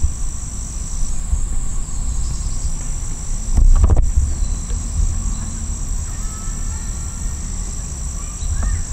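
Steady high-pitched chorus of insects, over a low rumble, with a single thump about three and a half seconds in.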